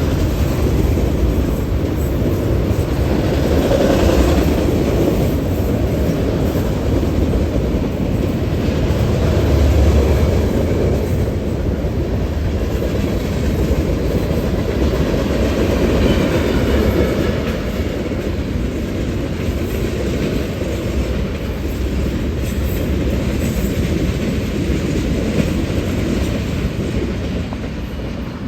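Union Pacific manifest freight train's cars rolling past: a loud, steady noise of steel wheels on rail that eases off slightly near the end.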